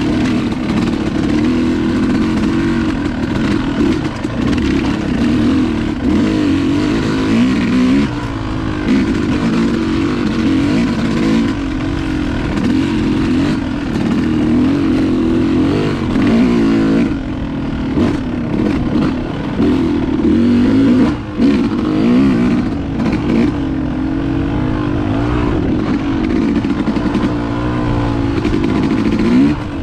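Dirt bike engine running as the bike is ridden along a trail, its pitch rising and falling over and over as the throttle is rolled on and off.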